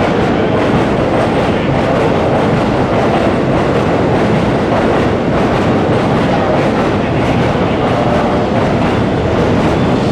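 Commuter train running along the station track, a steady loud rumble of wheels on rail with the clickety-clack of wheels passing over rail joints.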